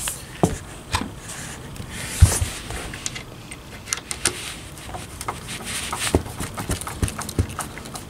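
Hand screwdriver turning a screw into the metal plate at the bottom edge of a sliding door. It makes irregular clicks and light knocks as the tip works in the screw head and the hand shifts against the door, with one louder knock about two seconds in.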